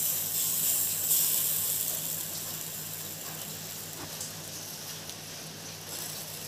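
Masala-marinated fish sizzling as it is laid on a wire grill over glowing charcoal. The hiss flares at the start and again about a second in, then dies down.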